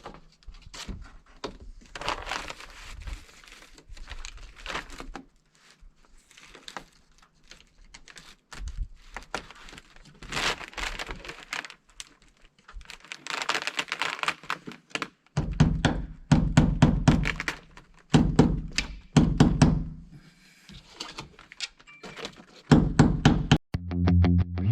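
Soffit sheets being handled and fitted into place: scraping and rustling, then several clusters of heavy knocks and thuds in the second half. Music begins just before the end.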